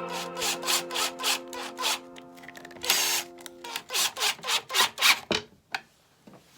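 Quick, repeated scraping strokes on wood, about three to four a second, over background music that ends about four seconds in.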